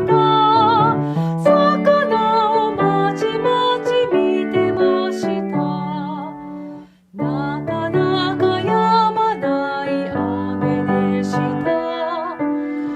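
A woman singing a gentle Japanese children's song with piano accompaniment. The music stops briefly about seven seconds in, then starts again.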